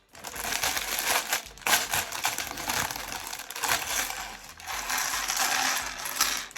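Loose plastic LEGO pieces clattering and rattling against each other, with plastic bag crinkling, in a dense run of small clicks that eases briefly twice.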